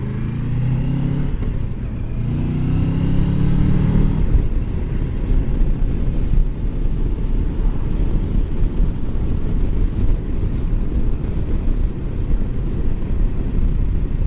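Kawasaki Versys 650 parallel-twin engine accelerating, its note rising twice with a short break for a gear change about a second and a half in. From about four seconds in the engine is buried under steady wind noise on the microphone as the bike cruises.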